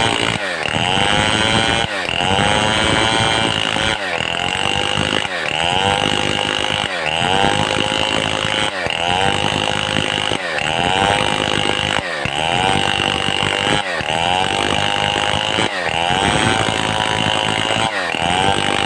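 Stihl 070 two-stroke chainsaw running hard, its engine pitch rising and then holding, dropping and climbing again about every one and three-quarter seconds in a steady repeating cycle.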